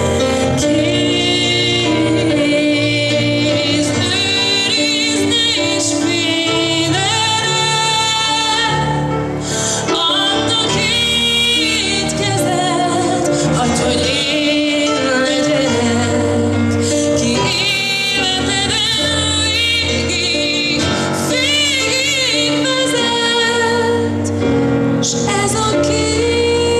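A woman singing a pop song into a handheld microphone over continuous backing music.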